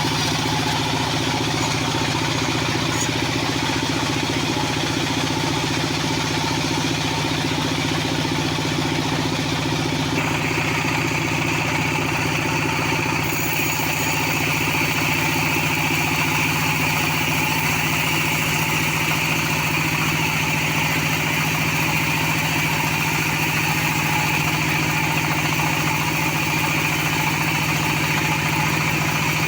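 Band sawmill running steadily on its engine; about ten seconds in a higher hiss joins the engine hum and carries on, as the blade cuts into the sonokeling rosewood.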